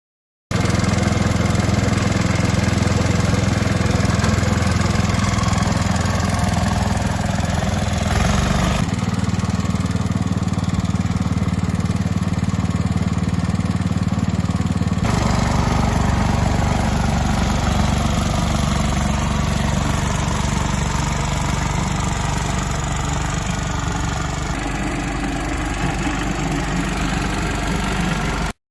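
Snow thrower's 1974 engine running steadily, its sound shifting abruptly twice and cutting off sharply near the end. The owner thinks it is down on power from a carburetor issue.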